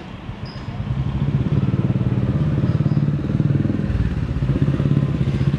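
An engine running close by, with a low, fast pulse. It grows louder over the first second and a half, then holds steady.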